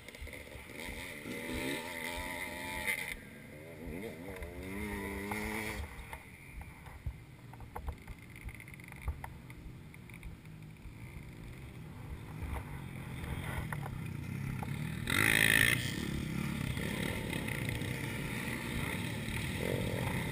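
Trail motorcycle engines idling, with engine pitch rising and falling in revs during the first few seconds. A brief loud rush of noise comes about fifteen seconds in.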